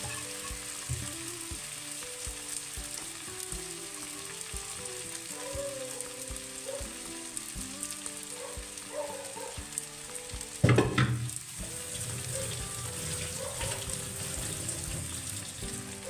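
Cooked rice sizzling in a steel kadai on a gas stove while more rice is scraped into it from an aluminium pot. One loud clatter comes about ten and a half seconds in.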